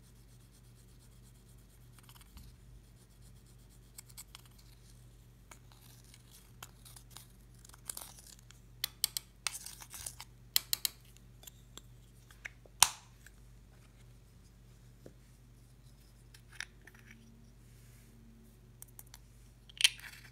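Pressed eyeshadow being scraped and crushed in its small plastic pan with a thin tool: scattered scratching with sharp plastic clicks and taps, busiest around the middle, with one loud click about two-thirds through and another near the end.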